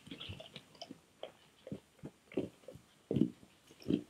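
Brown bear eating off the ground: irregular wet chewing and biting sounds, with louder bites about three and four seconds in.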